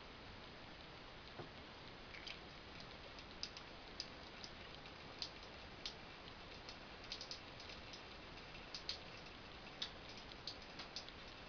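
Faint, irregular light ticks and taps over a steady low hiss, from cats playing with water in a bathroom.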